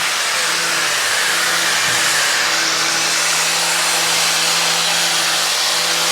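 A power tool running steadily against marble, grinding the edges of a stone piece to round them off: a loud, even hiss over a constant motor hum.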